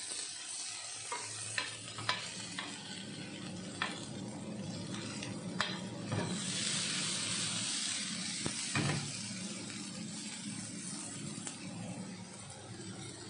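Boneless chicken pieces sizzling in a hot grill pan as they are turned and spread out, with scattered light clicks against the pan. The sizzle swells louder for a couple of seconds about halfway through.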